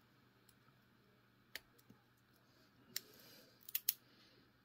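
A few sparse, light metallic clicks and a brief scrape of lock-picking tools being handled as one pick is swapped for a Euro hook: single clicks about a second and a half and three seconds in, then a quick cluster near four seconds.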